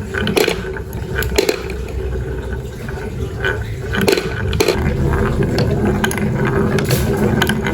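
Marbles rolling down a wooden marble run: a steady rolling rumble with several sharp clicks and knocks as they strike the track and one another.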